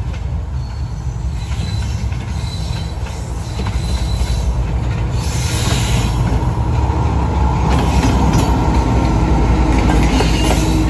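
Diesel locomotive approaching and passing close, its low engine hum growing louder about four seconds in and staying loud. A thin high squeal sounds in the first few seconds.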